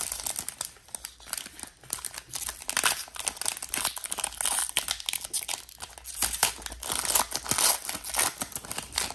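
Foil wrapper of a Panini Prizm football card pack being torn open and peeled back by hand: dense, continuous crinkling and crackling of the foil.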